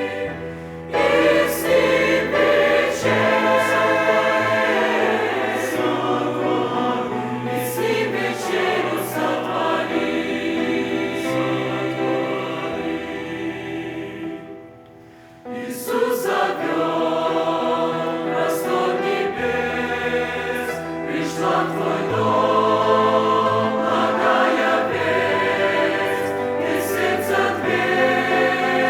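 Church choir singing a Russian-language hymn in sustained chords, breaking off briefly about halfway through before the next phrase.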